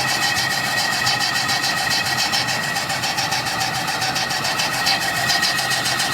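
A machine running steadily, with a fast, even ticking rhythm and a steady high whine.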